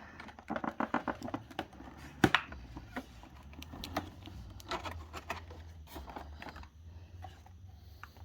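Cardboard and plastic packaging of a boxed collectible figure being handled: a run of light, irregular clicks and taps, with one sharper knock about two seconds in.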